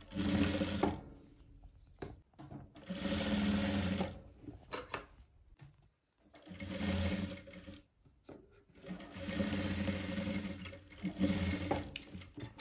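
Sewing machine stitching through thick plush fleece in short runs, starting and stopping about four times as a hoodie sleeve seam is sewn.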